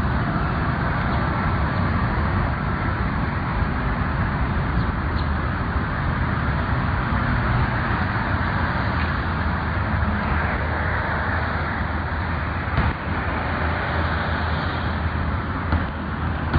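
Steady rumble of road traffic in the open air, with a couple of small knocks near the end.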